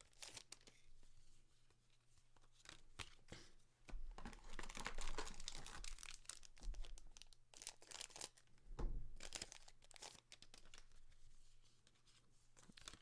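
Foil booster-pack wrapper being torn open and crinkled, with trading cards being handled: a string of short rustles and snaps, louder in a few clusters.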